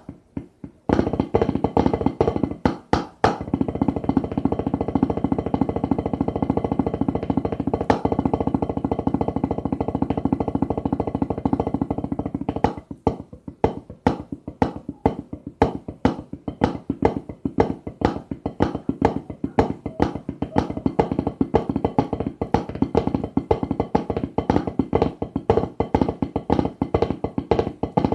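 Drumsticks playing a fast snare-drum warm-up. After a few single taps, a dense run of very rapid strokes sets in about a second in. From about halfway through it changes to separate strokes in a steady, accented rhythm.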